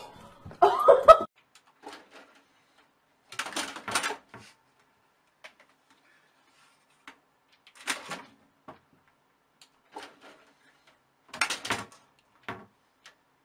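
A short, loud pitched call about a second in, then a tabby cat's claws scrabbling and fabric rustling in three short bursts as it climbs a curtain beside a cabinet, with faint clicks between them.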